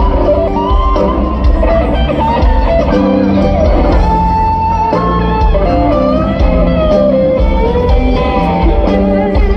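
Live rock band playing, led by an electric guitar solo with sliding, bending melody lines over bass, drums and a second guitar.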